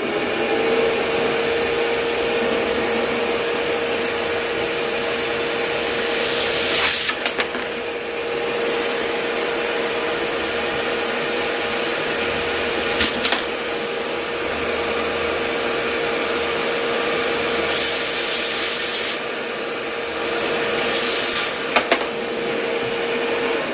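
Vevor 5 HP wet/dry shop vac starting up and running with a steady whine, its nozzle held down to suck up a bolt, a washer and a nut. A few sharp rattles cut through the motor noise, about a third of the way in, halfway, and several near the end, as the hardware is pulled up the hose.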